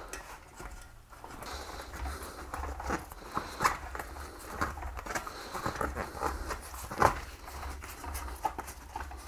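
Quiet handling noises as a rubber inner tube is fitted into a bicycle rim: rubbing and rustling with scattered light clicks and knocks, two of them louder, over a steady low hum.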